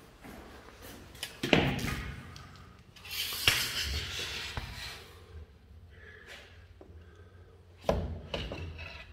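A few knocks and thumps, with a stretch of rustling noise and a sharp click in the middle.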